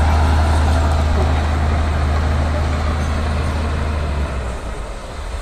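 Liugong bulldozer's diesel engine running with a steady deep drone, easing off about four seconds in.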